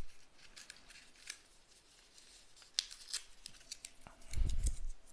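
Crisp paper ticking and rustling as a folded paper instruction manual is handled and opened, in scattered small clicks. A dull, low thump, the loudest sound, comes about four seconds in.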